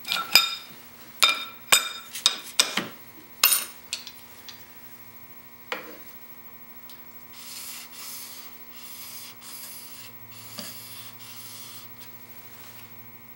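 Steel chisel's flat back rubbed on an extra-fine diamond sharpening plate to take off the last of the burr: about eight quick scraping strokes in the first four seconds, each with a short metallic ring, and one more near six seconds. Fainter rubbing and handling of the chisel and honing jig follow, over a steady mains hum.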